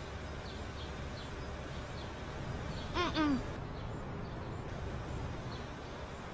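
Quiet outdoor ambience with faint, repeated high bird chirps. About three seconds in comes a short two-note call, each note falling in pitch.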